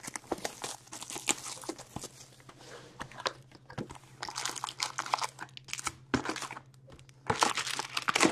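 Plastic and foil wrapping of an Upper Deck Series 2 hockey card hobby box crinkling and tearing as the box and its packs are opened, in irregular bursts with a louder flurry near the end.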